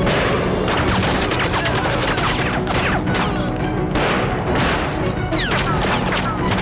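Staged film battle: dense rifle fire and explosions over a dramatic music score, with several short falling whistles near the end.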